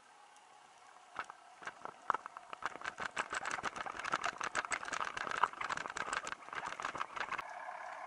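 A fast run of sharp clicks and rattles, sparse at first and then dense, heard underwater. It stops abruptly near the end, leaving a steady hiss.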